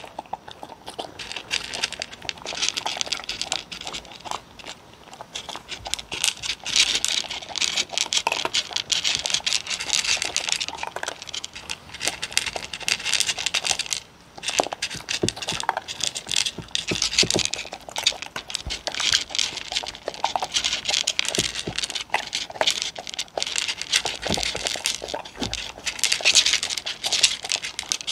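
Two dogs crunching dry kibble from wooden bowls right at the microphone: a dense, continuous run of crunches, crackles and kibble scraping in the bowls, with a brief pause about fourteen seconds in.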